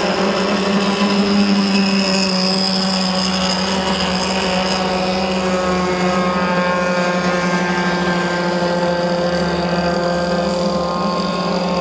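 Two-stroke CMB 26cc petrol engine of an RC racing boat running at speed through its tuned exhaust, a steady high-pitched buzz. Its pitch sags slightly in the second half as the boat passes.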